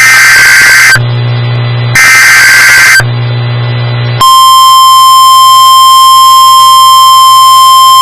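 Emergency Alert System SAME header: two loud, harsh one-second bursts of warbling digital data tones about a second apart. About four seconds in, the steady, single-pitch 1050 Hz National Weather Service warning alarm tone starts and holds.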